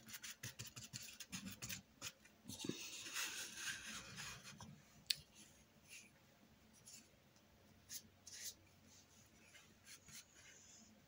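Faint scratchy rubbing of a paintbrush working acrylic paint over the painting surface, in a stretch of scrubbing strokes about two seconds in, with scattered light taps and clicks. It grows quieter in the second half.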